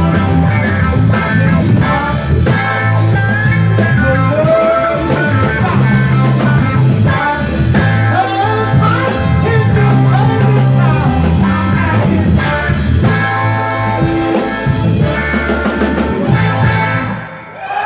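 Live soul band playing loud, with trumpets, electric guitar, keyboard, drums and a singer. The music drops away for a moment near the end, then comes back in.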